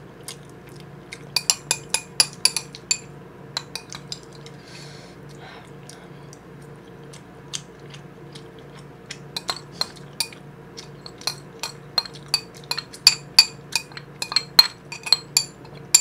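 Metal spoon clinking and scraping against a ceramic rice bowl: a cluster of clinks in the first few seconds, a few scattered ones, then a quicker run of about three clinks a second in the second half.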